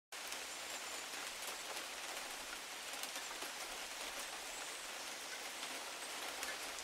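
Recorded heavy rain sound effect: an even hiss of rain with scattered sharp drop ticks, setting in abruptly at the very start.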